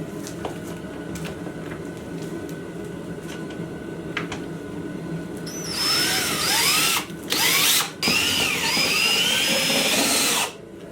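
Power drill driving screws in three trigger bursts a little past halfway, its motor whine rising and falling as each screw runs in, before a steady low hum.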